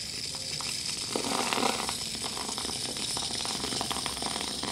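Whipped cream dispenser (gas-charged cream siphon) being squeezed to pipe cream: a steady gas hiss, with a sputtering crackle from about one to two seconds in as the cream spurts from the nozzle.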